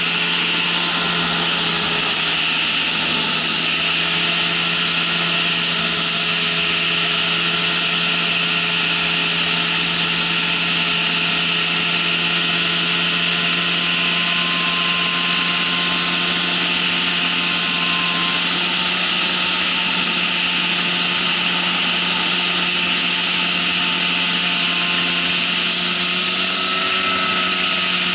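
Ultralight trike's engine and pusher propeller running steadily in flight: a constant drone under a loud, even rushing hiss.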